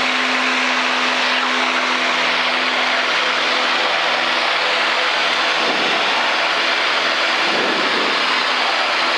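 Steady drone of a light experimental airplane's piston engine and propeller in flight, heard from inside the cockpit: a broad rushing noise with a steady low hum.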